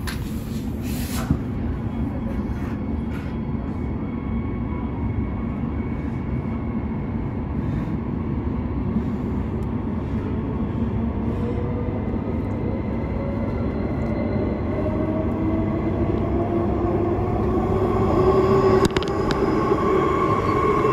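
Transperth B-series electric train heard from inside the carriage as it pulls away: a steady rumble of wheels on rail, with the traction motors' whine rising slowly in pitch as the train gathers speed. It grows louder toward the end.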